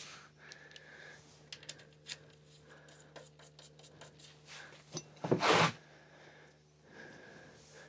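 Hand work on a trike's wheel: light scraping, rubbing and small clicks of tools and parts, with one loud half-second rasp about five and a half seconds in.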